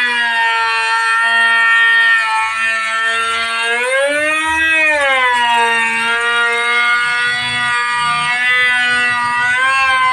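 Woodworking machine's motor and cutter whining at high speed while shaping a wooden window frame. The pitch holds steady, then rises and falls back about four seconds in and again near the end as the cutting load changes.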